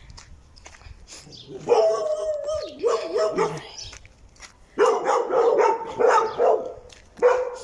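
A dog barking in two bouts, one about two seconds in and another from about five seconds in, with one more bark near the end.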